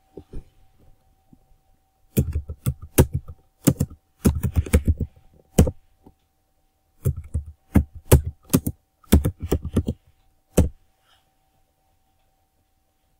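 Typing on a computer keyboard: quick runs of keystrokes in several bursts with short pauses between, ending in a single keypress.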